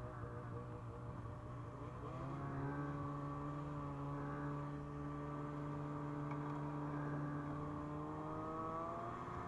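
Snowmobile's 600 two-stroke twin engine running, revving up about two seconds in and then holding a steady higher pitch, climbing slightly again near the end.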